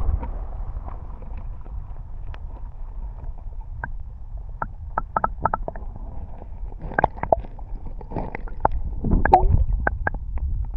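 Water splashing and gurgling close to the microphone over a steady low rumble of wind and current. A run of small, sharp splashes and clicks comes in the second half.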